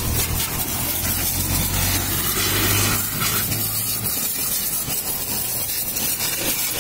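Pressure-washer jet spraying water onto a scooter and the wet ground: a loud, steady hiss. Underneath, a low machine hum stops about four seconds in.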